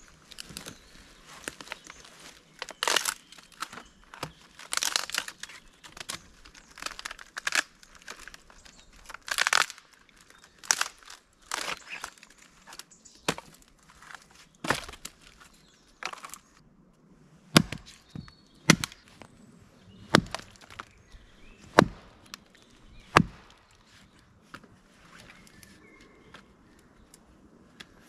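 Dry wood being broken and worked by hand: irregular crackling and snapping, then about five sharp knocks, one every second or so, as of chopping or hammering wood.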